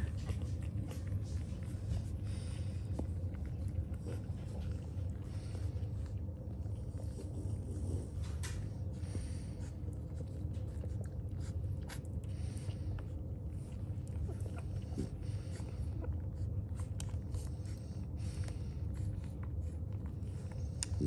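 Newborn French bulldog puppies suckling at their mother's teats: scattered small wet smacking clicks and snuffles, over a steady low hum.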